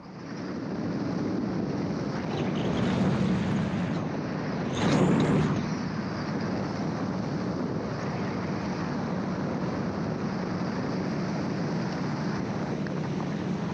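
Gyroplane in flight heard from its open cockpit: steady engine and propeller drone under wind rush, with a brief louder surge about five seconds in.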